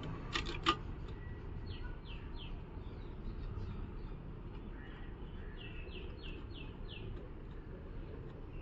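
A bird calling in runs of short, high notes that each slide downward, over a steady low background noise. A few sharp clicks sound in the first second.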